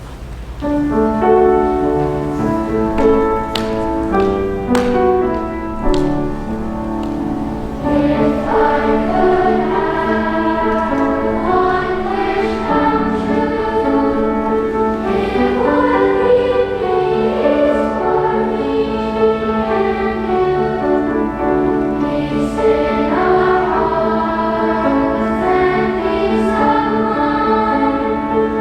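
A choir singing, in several voices, coming in about a second in.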